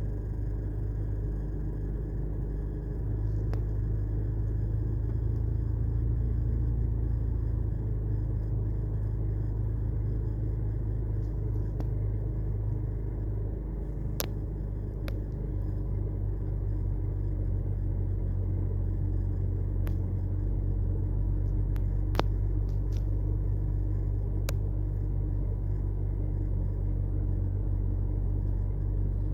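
BMW N52 2.5-litre straight-six idling steadily, freshly serviced with new plugs, coils and VANOS solenoids to cure a misfire and rough idle. A few sharp clicks are heard over it.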